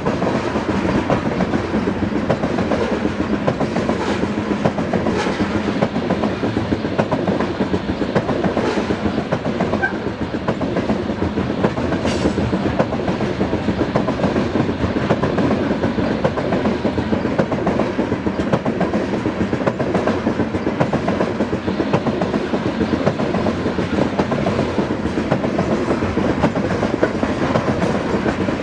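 Coal cars of a long freight train rolling past at close range: a steady rumble of steel wheels on rail with a continuous clickety-clack of wheels striking the rail joints and crossing.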